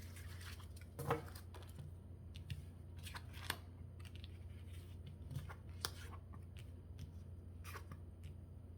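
Tarot cards being handled and drawn from the deck, giving scattered short card clicks and slides, about seven over several seconds, over a low steady hum.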